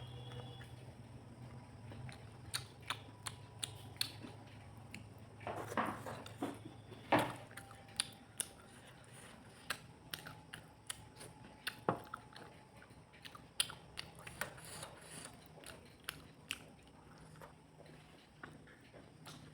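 A person eating fish curry close to the microphone: chewing with many sharp wet mouth clicks and a few louder, longer smacks, over a faint low hum.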